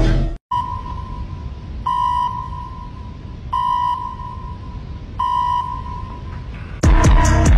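Music cuts off about half a second in, followed by a steady high electronic tone with three louder beeps about every second and a half over a low rumble. Heavy, beat-driven music comes back in near the end.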